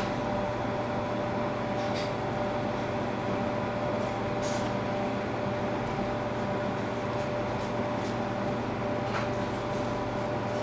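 Steady machine hum with a few held tones and a low rumble, the even drone of running equipment, with a few faint light clicks.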